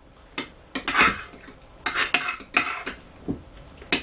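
Spoons scraping and knocking against plastic bowls as a glue slime mixture is stirred: a few short, irregular scrapes.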